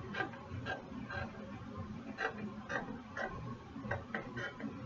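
Scissors cutting through lining fabric, a series of short snips about every half second at an uneven pace.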